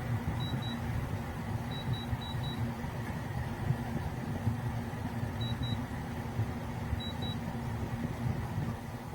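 Black+Decker BPACT10WT portable air conditioner running: a steady hum and rush from its compressor and fan. Faint short high beeps come in pairs a few times.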